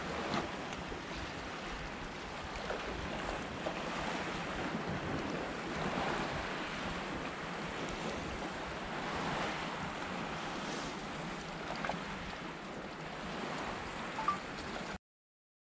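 Steady wash of sea waves at a breakwater, swelling and easing gently, with wind noise on the microphone and a few small handling clicks. It cuts off suddenly near the end.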